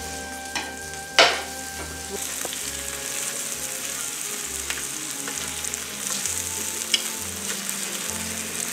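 Breakfast sausage patties and eggs sizzling on an electric griddle as the patties are turned over with a spatula and fork. The sizzle grows louder about two seconds in. There is one sharp clack about a second in and a few lighter taps of the utensils.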